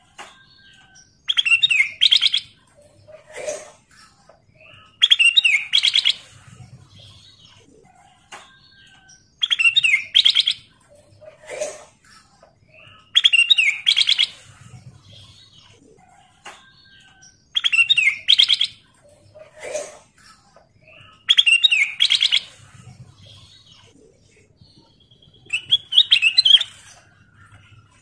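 Ruby-throated bulbul (kutilang emas) singing: a short phrase of clear whistled notes repeated seven times, about every four seconds, with a fainter, lower single note between some of the phrases.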